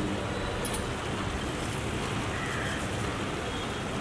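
Steady rushing noise of the heat source under a large pan of simmering tomato sauce, even throughout with no distinct sizzle or bubbling pops.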